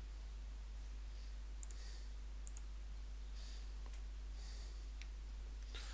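Quiet room tone with a steady low hum and a few faint mouse clicks.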